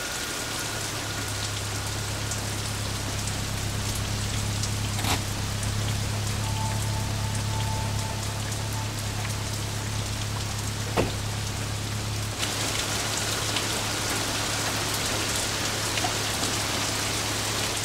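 Rain falling steadily over a steady low hum, with two sharp knocks, about five and eleven seconds in.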